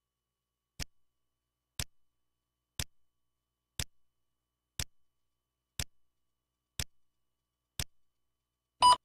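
Countdown leader on a commercial's slate: eight short sharp ticks, one each second, then a short, louder beep near the end, the 'two-pop' sync tone that marks two seconds before the spot starts.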